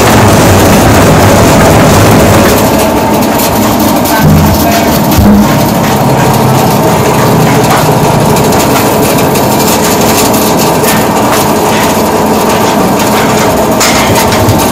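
Five-foot twin-motor spindleless rotary veneer lathe running loudly and steadily as its rollers turn a hardwood log against the knife, peeling it into veneer. There are a couple of brief heavier low pulses about four and five seconds in.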